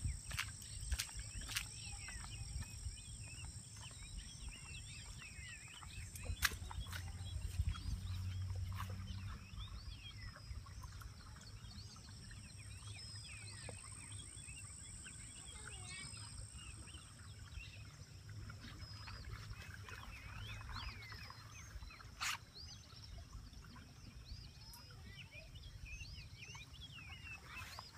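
Many birds chirping and singing over a low steady rush of water from a dam's flood release pouring over a concrete weir. A few sharp clicks come in, mostly in the first few seconds.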